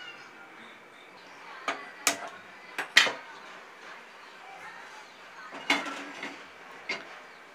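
A series of short, sharp metal clinks and knocks as cookware is handled: steel plates and a pressure cooker being set down on a gas stove's grate. The loudest knock comes about three seconds in, and there are more around six seconds.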